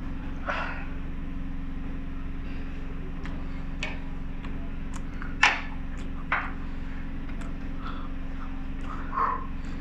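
Steady low machine hum, with a few short clicks and knocks over it, the sharpest a little past halfway.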